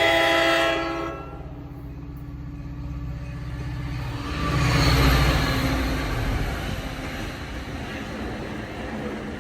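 A train running through the station with a low rumble and rail noise, growing louder about five seconds in and then easing off.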